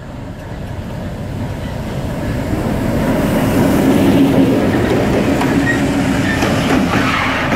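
EMD G16 diesel-electric locomotive, with a two-stroke V16 diesel engine, passing slowly at close range. The engine's drone grows louder over the first four seconds and then holds, with wheels clicking over the rails near the end.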